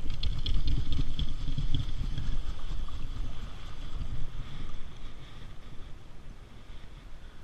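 Wind buffeting the microphone over the steady rush of a fast river, heaviest in the first few seconds and then easing off.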